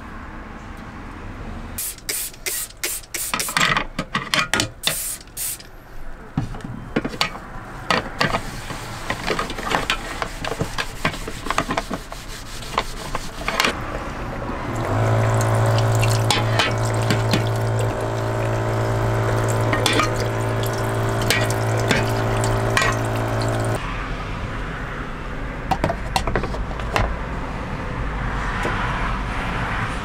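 Water running, with a quick run of clicks and knocks a couple of seconds in. Midway, a low steady hum runs for about nine seconds and then cuts off suddenly.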